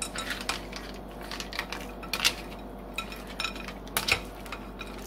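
A black plastic spoon stirring dry rotini pasta, chicken pieces and broth in a glass mixing bowl, clacking and scraping against the glass in irregular strokes, with two sharper knocks about two and four seconds in.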